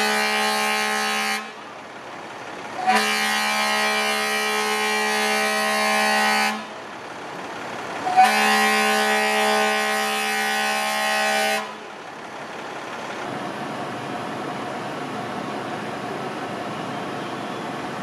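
Fire truck air horn sounding three long steady blasts, each a few seconds long. The first is already sounding as it begins and the third stops about 11 to 12 seconds in. A steady low hum of running engines is left behind after the horn stops.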